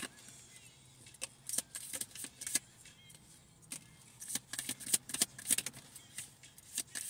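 Tarot cards being shuffled by hand: quick snaps and flicks of card against card in two bursts, one starting about a second in and another from about four seconds in until near the end.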